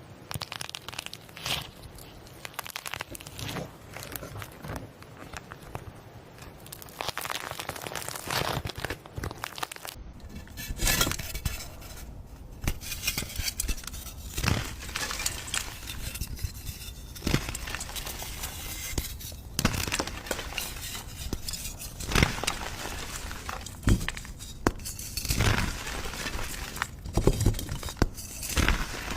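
Hands squeezing, poking and stretching slime: a dense run of crackles, clicks and sticky pops, changing in texture about ten seconds in.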